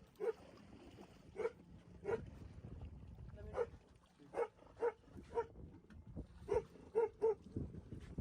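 Dog barking about ten times in short, separate barks at an uneven pace.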